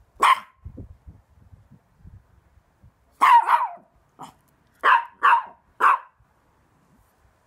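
Chihuahua barking: a single sharp, high bark, then after about three seconds a run of barks ending in three quick ones about half a second apart.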